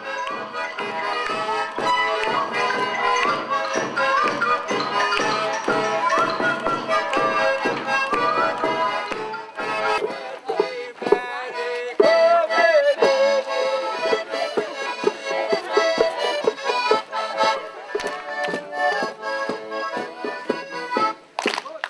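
Instrumental music with a steady percussive beat, the rhythm changing about halfway through.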